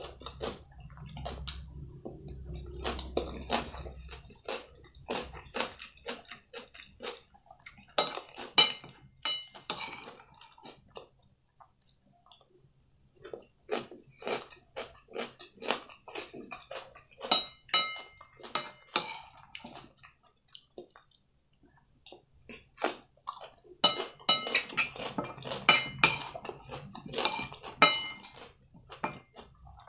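A metal spoon clinking and scraping on a ceramic plate as fried noodles and cucumber slices are scooped up, in clusters of sharp, ringing clinks. Close-miked chewing of the food comes between them.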